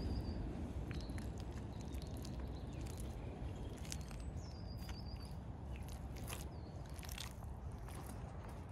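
White Reebok Classic leather trainers squelching in thick wet mud as the feet tread and shift in it, a series of irregular wet squishes.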